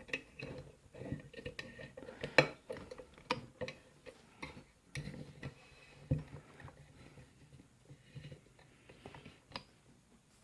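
Scattered metallic clicks and knocks from a heavy padlock being handled and set into a bench vise.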